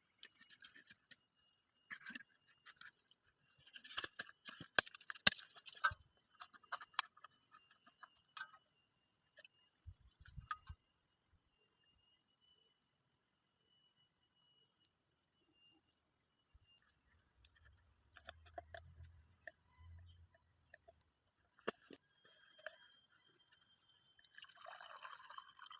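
Steady high-pitched insect chorus in forest. A cluster of sharp clicks and knocks comes about four to seven seconds in, and short chirps repeat through the second half.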